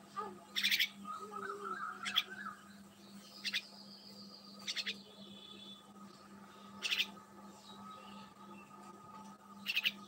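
Birds chirping: about six short, sharp, high calls at uneven intervals, with a faint whistle in the middle, over a steady low hum.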